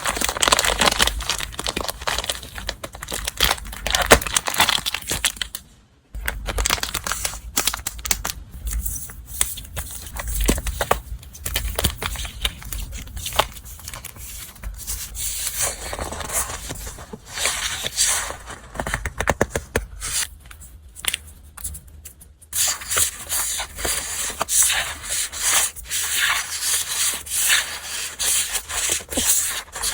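Paper and packaging being handled by hand: irregular rustling and rubbing with small taps and clicks, broken by a brief pause about six seconds in.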